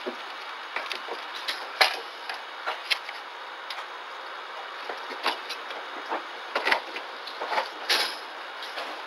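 Steady hiss from a security camera's microphone, with irregular small clicks and knocks scattered through it; the sharpest come about two seconds in and again near the end.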